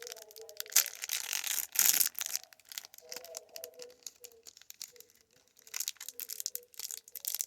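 Rustling and crinkling of a Pokémon booster pack's foil wrapper and cards being handled, in short bursts. It is loudest around one and two seconds in and sparser through the middle.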